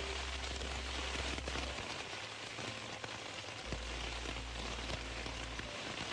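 Heavy rain falling steadily and hissing on hard surfaces during a thunderstorm, with a low hum underneath that drops out twice.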